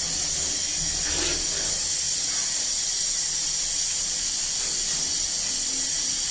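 Stick-welding arc giving off a steady, high-pitched hiss.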